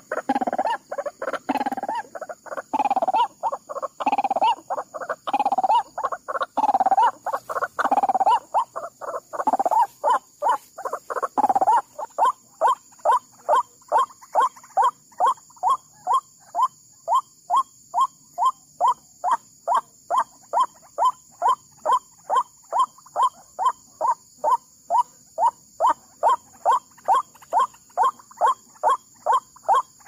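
White-breasted waterhen calling. First comes a run of loud, rough calls about one a second. About twelve seconds in, these settle into a steady, monotonous repeated note a little over twice a second.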